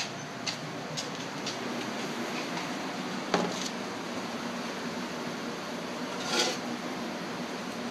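Steady mechanical hum, such as a fan or appliance, with a few light clicks early on, a sharper knock about three seconds in, and a short scraping rustle near the end.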